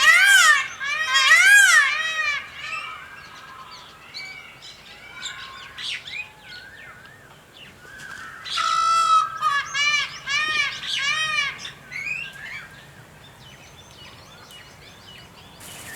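Songbirds singing: quick runs of repeated rising-and-falling whistled notes. The song is loud for the first two seconds, drops to scattered fainter chirps, and comes back loud for a few seconds past the middle before fading.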